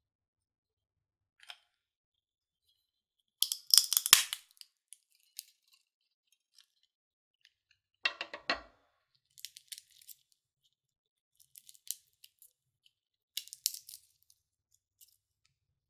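A walnut shell cracking in a spring-loaded hand nutcracker: a cluster of sharp cracks about four seconds in. It is followed by shorter bursts of crackling as the broken shell is pulled apart by hand.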